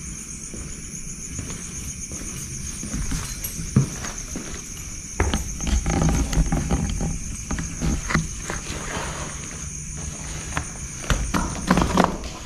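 Footsteps and scuffs of someone walking into an empty building. Knocks begin about four seconds in, grow busier from about five seconds, and bunch up near the end. A steady high chirring of night insects runs underneath.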